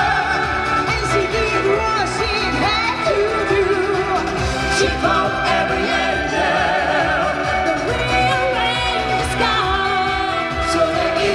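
A vocal group of musical singers performing a pop song live into handheld microphones over loud, steady amplified accompaniment.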